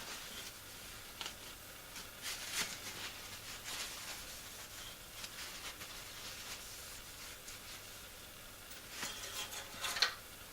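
Faint handling noises: scattered short rubs and scrapes with light clicks, the loudest one near the end.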